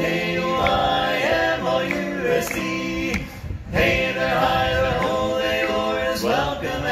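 Male barbershop quartet singing in close four-part harmony, holding long chords, with a short break about three and a half seconds in.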